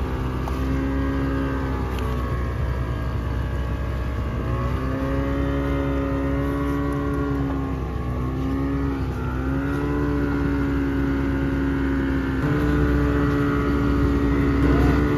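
A boat's engine running, its pitch drifting slowly up and down and stepping up about twelve seconds in.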